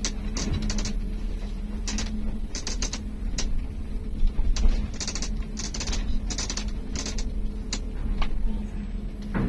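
A bus's cabin rattling and clacking in short irregular bursts as it rolls slowly over a ferry's ribbed steel loading ramp, over the steady low hum of its idling diesel engine.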